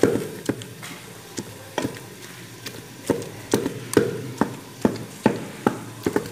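Wooden pestle pounding and mashing boiled turnips in a stainless steel bowl, with sharp, irregular knocks about twice a second.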